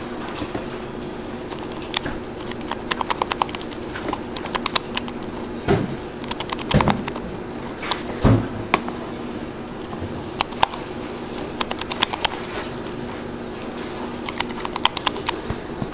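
Plastic spatulas stirring and scraping buttercream in plastic cups, with quick clusters of clattering taps against the cup walls and a few heavier knocks near the middle, over a steady low hum.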